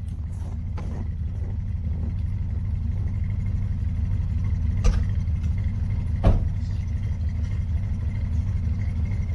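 Pickup truck engine idling steadily, pulled up to give a jump start to a van that will not start, with two sharp clicks about five and six seconds in.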